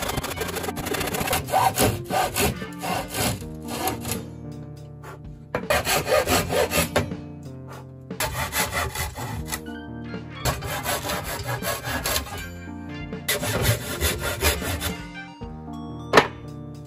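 Hand saw cutting through wooden boards in quick rasping strokes, in several bouts with short pauses between them, over background music. A single sharp knock comes near the end.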